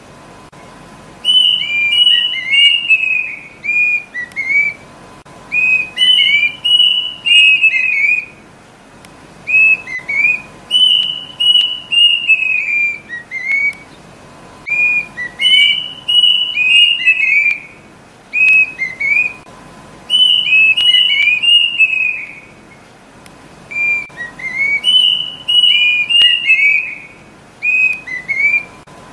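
Kedasih cuckoo (Cacomantis) calling: bouts of clear whistled notes that step down in pitch, each bout lasting a couple of seconds and repeating every four to five seconds, with notes at times overlapping.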